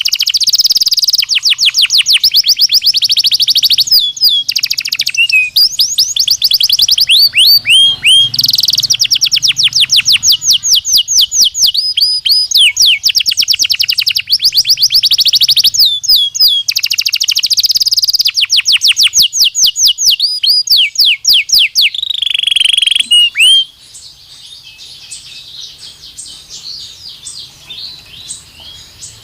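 Belgian canary singing in long, rapid trills of quickly repeated notes, one roll running into the next. Near the end the loud trills stop and a softer, quieter twittering goes on.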